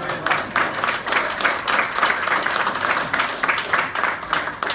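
A group of people applauding, many hands clapping at a steady level throughout.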